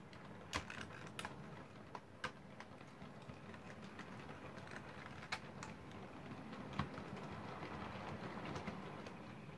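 OO gauge model locomotive, a Hornby Mallard running on a Flying Scotsman chassis and motor, running slowly along the track with a rake of coaches. A faint, steady low hum and rail rumble grows a little louder, with irregular sharp clicks from the wheels on the rail joints and points.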